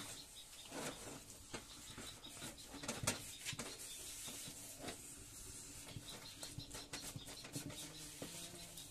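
Wooden cooking stick (mwiko) stirring and pressing stiff ugali dough in a pot, giving irregular soft knocks and scrapes, the loudest about three seconds in.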